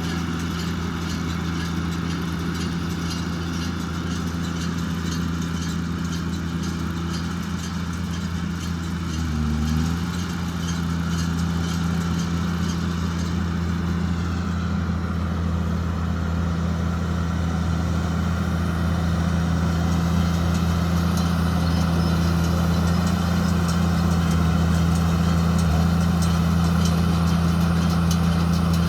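JCB Fastrac 2170 tractor running steadily while driving a Fusion 2 combined baler-wrapper that is baling and wrapping rice straw. A higher whine dips in pitch about halfway through, and the sound grows a little louder from about twenty seconds in.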